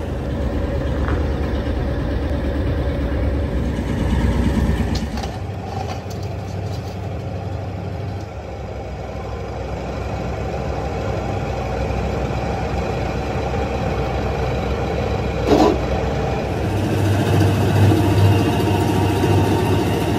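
Motor-driven steel wheel-rim rolling machine running steadily with a low drone, louder from about seventeen seconds in, and one sharp metallic knock at about fifteen and a half seconds.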